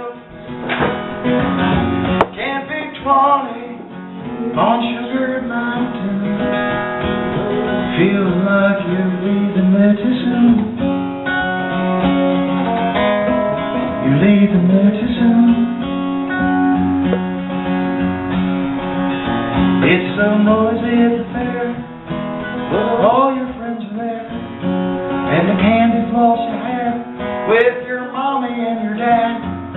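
A man singing a song to his own acoustic guitar, played live into a microphone, with the vocal lines coming and going over the continuous guitar.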